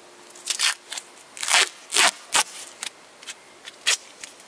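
Duct tape being pulled off the roll and torn by hand, a quick series of short ripping crackles.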